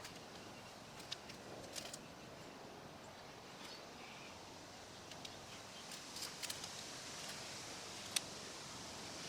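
Faint outdoor background with a few sharp, light clicks and taps: one about a second in, a pair near two seconds, a cluster around six seconds and one near eight seconds.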